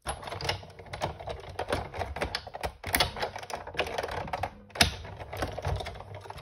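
Busy, irregular clicking and tapping of paper, tape and a metal cutting die being handled and repositioned on a craft desk during die cutting.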